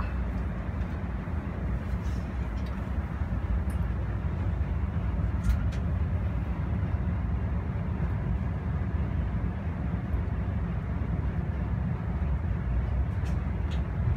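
Steady rumble of a passenger train running, heard from inside the carriage, with a few faint clicks over it.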